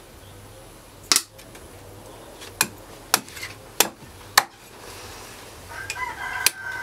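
A meat cleaver chopping through a catfish onto a wooden stump chopping block: about six sharp knocks, unevenly spaced.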